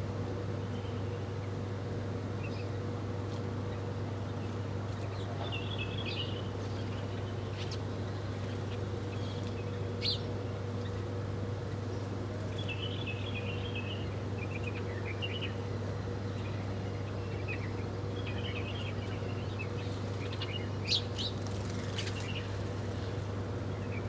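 Small birds chirping in short, scattered bursts over a steady low hum, with two brief sharp clicks, one about ten seconds in and one near the end.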